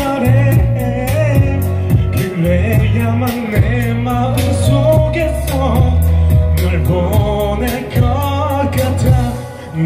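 A man singing into a handheld microphone over loud backing music with a heavy bass line and a steady beat, all through a PA system. The music dips briefly near the end.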